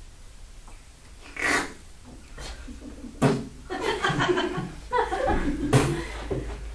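People laughing and chuckling, with short breathy vocal noises in between.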